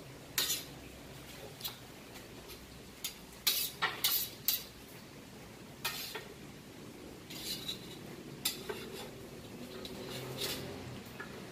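A chef's knife cutting grilled beef sausage on a wooden cutting board, with about a dozen irregular knocks and scrapes as the blade and the metal skewers hit the board.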